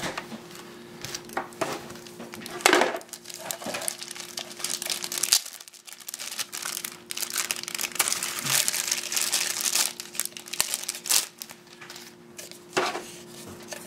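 Clear plastic packaging bags and wrap crinkling and rustling in the hands, in irregular handfuls with scattered sharper crackles, over a faint steady hum.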